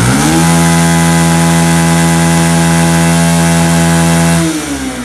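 Bajaj Pulsar motorcycle's single-cylinder engine revved hard: it climbs quickly, holds at high revs, then drops back toward idle near the end. The hard throttle slackens the timing chain again and brings back the chattering 'jhirjhiri' rattle, which the mechanic blames on a worn balancer rather than the chain itself.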